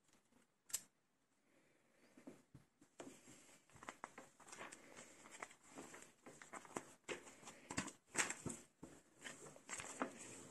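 Small plastic LEGO pieces being handled and fitted: one sharp click, a short pause, then a run of light clicks and rattles as pieces are picked from a loose pile.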